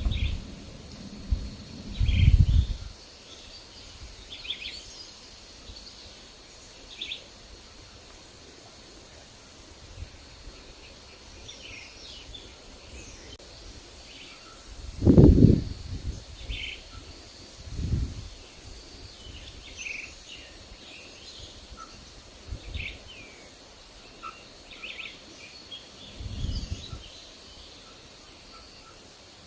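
Forest birds chirping in short, scattered calls, over a faint steady high tone. Gusts of wind rumble on the microphone a few times, the strongest about halfway through.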